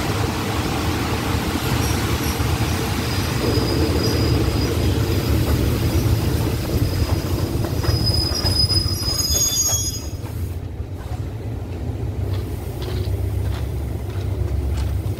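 A diesel passenger train rolling slowly to a halt, its wheels and brakes giving a high, wavering squeal that stops about ten seconds in as the train comes to rest. A steady low engine rumble runs throughout.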